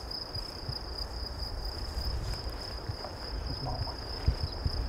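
An insect trilling steadily at one high pitch.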